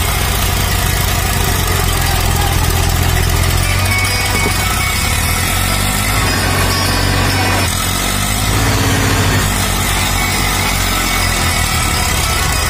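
Eicher 333 tractor's diesel engine running hard under heavy load as it pulls a loaded trolley stuck in mud. The engine note holds steady, with a brief dip about eight seconds in.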